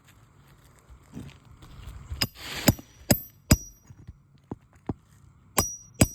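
Sharp metallic clinks of a metal roofing tool working under asphalt shingles. A short scraping rush about two seconds in leads into four clinks with a brief high ring, about half a second apart. Two more come near the end.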